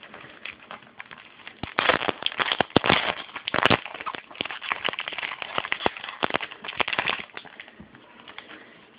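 Trading cards being handled and flipped through: a dense run of rustling and crackly snaps from about two seconds in to about seven seconds in, with one sharper snap in the middle.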